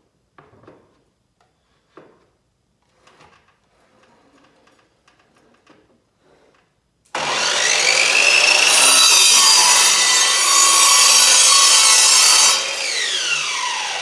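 Electric miter saw cross-cutting a pine 1x12 board, after a few faint knocks as the board is set in place. About seven seconds in the motor starts suddenly with a rising whine, the blade cuts loudly through the wood for about five seconds, and then the motor winds down with a falling whine after the trigger is let go.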